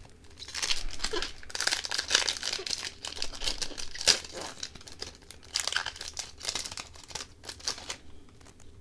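Plastic wrapper of a hockey card pack being torn open and crinkled in the hands: a dense run of crackling from about half a second in, dying away near the end.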